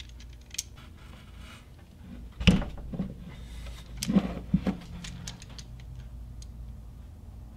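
Metal clicks and knocks from a hand lever battery-cable lug crimping tool being handled: its die setting is turned and a copper lug on a heavy cable end is fitted into its jaws. One louder knock comes about two and a half seconds in, and a few more knocks come around four to five seconds.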